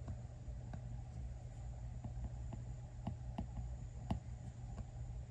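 Apple Pencil tip tapping and stroking on an iPad Pro's glass screen: light, irregular clicks, a few a second, over a low steady hum.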